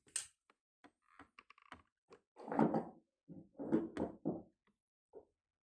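Metal door closers being handled: a run of light clicks and taps, then a few dull thunks about two and a half and four seconds in.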